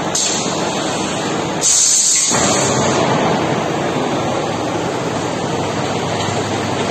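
Tube packing line running with a steady, loud machinery noise, and a hiss of compressed air from its pneumatic cylinders during the first three seconds, loudest about two seconds in.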